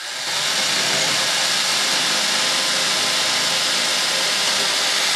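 Cordless drill running at steady full speed with a long thin bit, drilling through the bomb-bay structure, stopping near the end.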